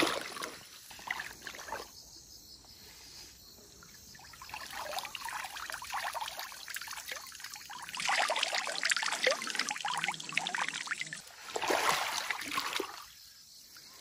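Pond water splashing and trickling as a shrimp trap is pulled up out of the water and drains, along with sloshing from legs in waders wading through the shallow pond. The water noise is patchy, fuller in the second half with a last burst near the end.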